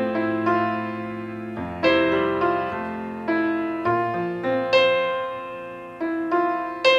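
Background music: a slow piano piece, notes and chords struck and left to fade.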